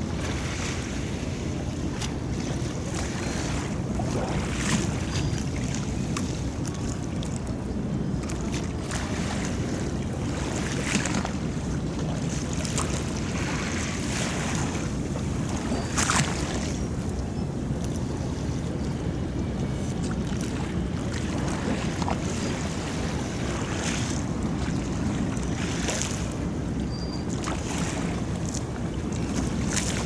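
Harbour water lapping against the quay, with irregular sharper splashes a few seconds apart over a steady low rumble of wind on the microphone.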